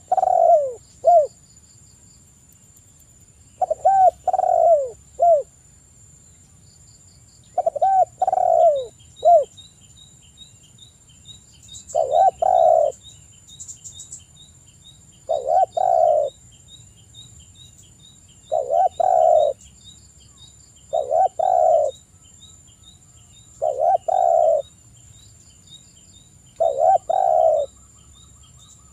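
Spotted dove cooing repeatedly, a loud low phrase about every three seconds. The first three phrases have three parts with a short final note; the later ones are shorter, one or two parts.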